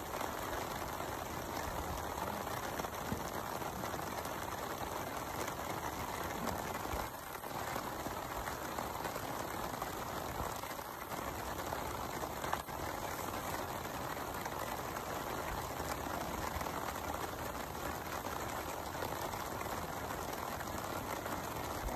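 Steady hiss of rain falling, an even noise with no distinct events.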